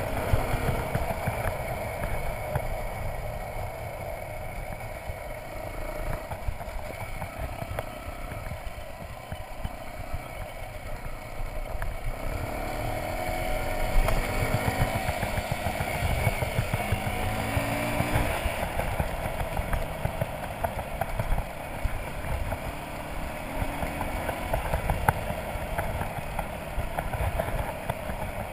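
Motorcycle engine running as the bike is ridden along a gravel road, a steady rumble under a haze of noise, its pitch rising briefly several times as the throttle is opened.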